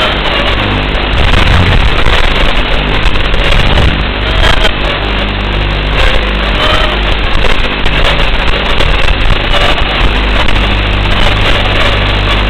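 A tiny whoop micro-drone's 6x17 mm brushed coreless motors and propellers buzzing in flight, a harsh, hissy drone whose pitch wavers up and down as it manoeuvres.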